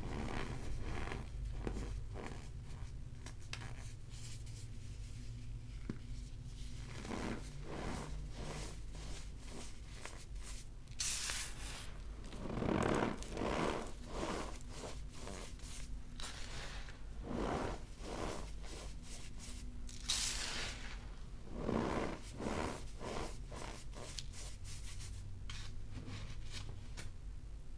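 Hands crushing and squeezing cornstarch blocks topped with baking soda, the packed powder crunching and squeaking as it is compressed and crumbled. The sound comes in irregular handfuls, with a few louder squeezes about halfway through and again about two-thirds of the way through.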